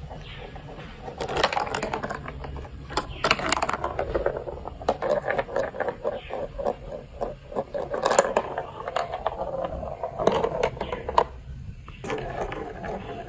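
Plastic building-block marble-run pieces clicking and rattling, a dense run of small sharp clacks with busier stretches.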